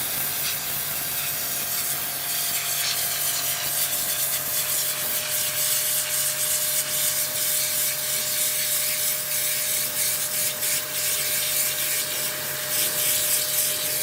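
Electric pressure washer running with its high-pressure water jet blasting into a hard coconut: a steady motor hum under a constant hiss of spray.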